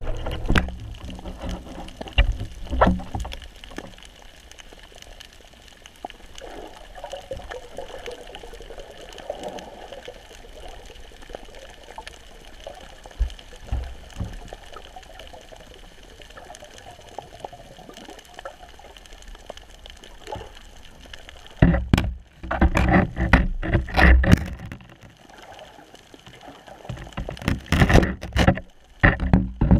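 Underwater water noise picked up through an action camera's housing, a muffled hiss with scattered clicks. In the last third come two spells of loud, irregular knocks and rushes.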